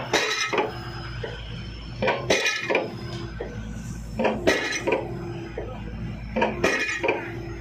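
Pile driving: sharp metallic clanks with a short ring every couple of seconds, often two in quick succession, as the piling hammer strikes a precast concrete pile, over the steady drone of the rig's engine.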